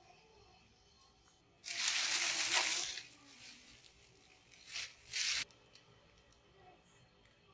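Plastic sheeting crinkling and rustling close by: one rustle lasting over a second, then two short ones about three seconds later.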